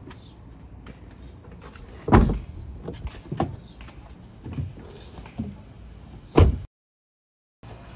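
Car doors slammed shut on a compact car: one loud slam about two seconds in and another, the loudest, near the end, with a few lighter knocks and thuds in between. The sound cuts out abruptly for about a second just after the second slam.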